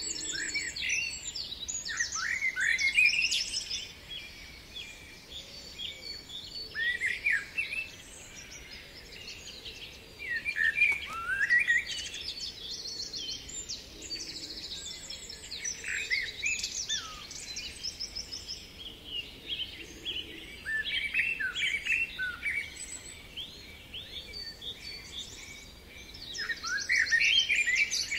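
Several songbirds singing over one another: quick rising chirps and fast, high trills, coming in clusters every few seconds.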